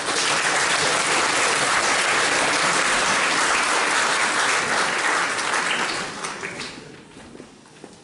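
Audience applauding, a dense clapping that holds for about six seconds and then dies away.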